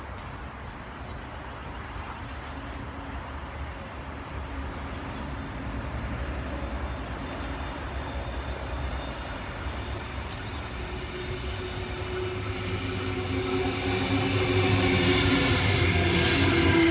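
Sydney Trains Tangara electric train approaching and arriving, its low rumble growing steadily louder as it nears. Over the last few seconds the cars pass close by with a rising motor whine and loud wheel and rail noise.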